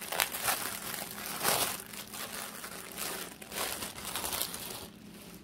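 Clear plastic packaging crinkling as hands press and handle it, in irregular rustles, the loudest about a second and a half in; it dies down near the end.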